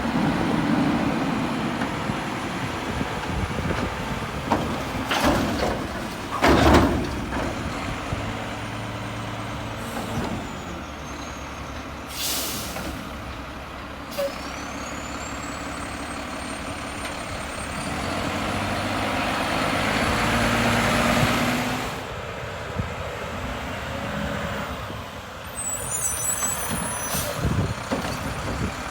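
Mack garbage truck with a Heil Curotto-Can body running, with loud bangs and clanks about five and seven seconds in and a short air-brake hiss about twelve seconds in. The engine swells for a few seconds past the middle, then drops back.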